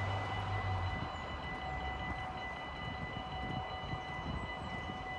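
Dutch level-crossing warning bells ringing steadily as the barriers begin to lower, warning of an approaching train. A low, uneven rumble runs underneath.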